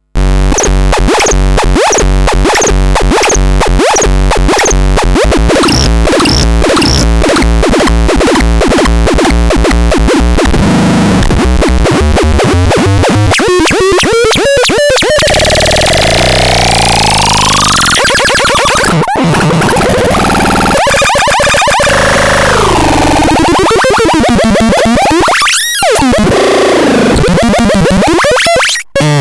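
Harsh electronic synthesizer noise, loud throughout. For about the first ten seconds a dense, buzzy tone pulses about twice a second. It then turns into sweeping glides rising and falling in pitch, with a brief cut-out near the end.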